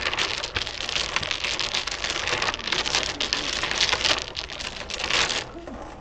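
A set of double-six dominoes being shuffled face down by hand on a wooden table, the shake before a hand of 42: a dense clatter of tiles clicking and sliding against each other. It stops shortly before the end.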